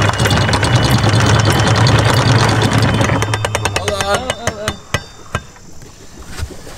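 Anchor chain rattling out fast over the bow of a sailing yacht, over a steady low engine hum. About three seconds in the rattle stops abruptly, followed by a few single clanks: the chain has jammed because the pile in the chain locker fell over on itself.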